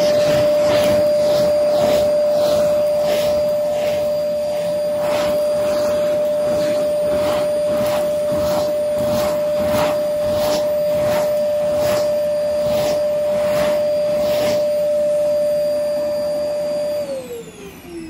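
Vacmaster vacuum running with a steady whine while its brush nozzle is pushed back and forth over carpet in regular strokes, a little more than every half second, with the crunch of grit being sucked up. About a second before the end it is switched off, and the motor winds down with a falling whine.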